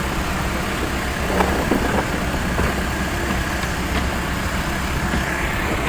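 Heavy machinery or an engine running with a steady low drone, with a few faint knocks over it.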